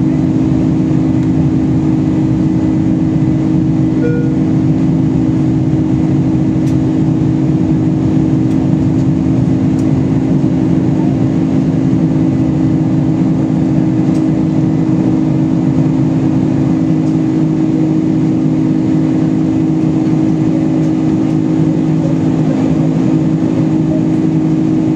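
Steady in-flight cabin noise of a Boeing 747-400 airliner: a loud, even drone of engines and airflow with a constant low hum.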